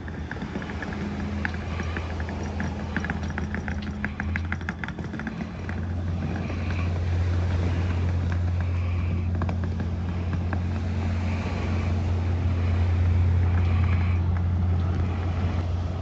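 A steady low engine hum that swells about six seconds in, with a fast rattle of clicks over the first few seconds.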